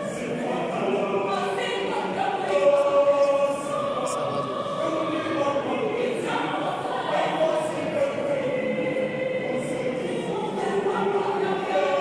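High-school choir singing, many voices together holding long notes that move from chord to chord.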